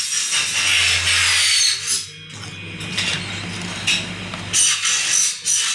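Power saw cutting an aluminium window section: a loud, high whining hiss that stops about two seconds in. The motor then keeps humming lower for a couple of seconds, and a few sharp knocks follow near the end.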